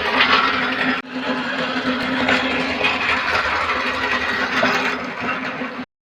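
A machine running steadily with a constant hum and a broad hiss, cutting out briefly about a second in, then stopping abruptly near the end.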